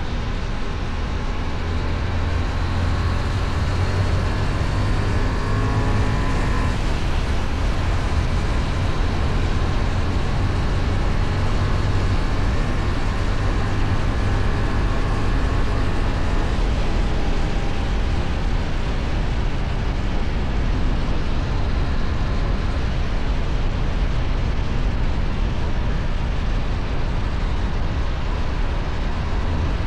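Kove 625X Adventure motorcycle engine through its stock exhaust, running steadily while riding, over a continuous haze of rushing noise.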